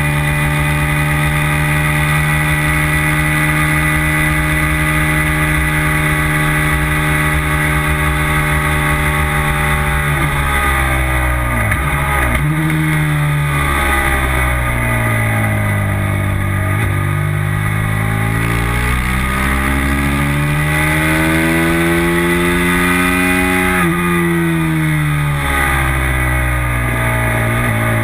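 Racing motorcycle engine heard on board at full race pace: held at high revs for about ten seconds, then the pitch drops sharply in quick steps as the rider downshifts for a corner, climbs again through the gears, drops sharply once more near the end and starts climbing again.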